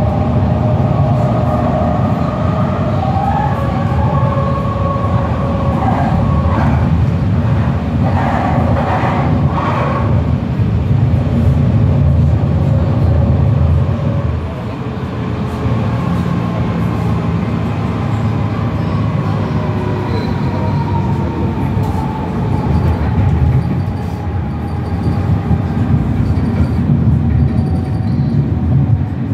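Tram running along its track, heard from inside the passenger car: a steady low rumble of wheels on rail, with high whining tones that waver during the first ten seconds and a long, slowly falling whine in the second half.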